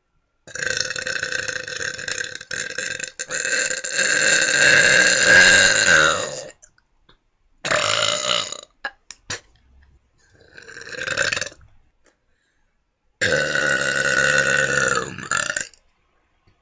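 A person burping out loud on purpose: one very long drawn-out burp of about six seconds, then a short one, a fainter one, and another long burp of about two and a half seconds near the end. Each burp holds a steady pitch that drops off as it ends.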